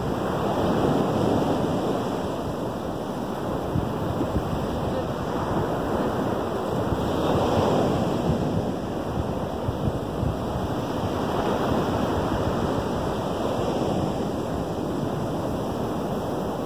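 Small Lake Michigan waves breaking and washing up a sandy beach: a steady wash of surf that swells about a second in and again around seven to eight seconds in.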